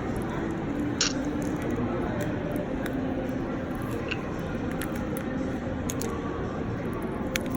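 Scattered small clicks and scrapes of a pry tool working under the Galaxy Note 10 Plus's heated back glass, separating the glass from its adhesive, over a steady background rumble.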